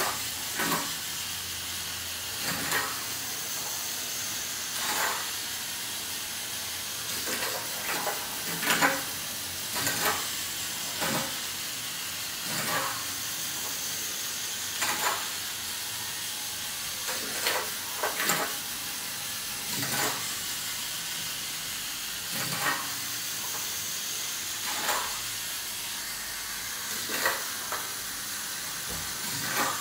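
Lego Technic car's Power Functions electric motor and plastic gear train whirring steadily as it drives across a table, with a short plastic click or clack every couple of seconds.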